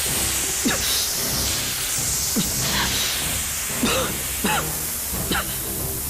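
Jets of white gas spraying out with a steady loud hiss, over dramatic background music, with several short sweeping swishes scattered through it.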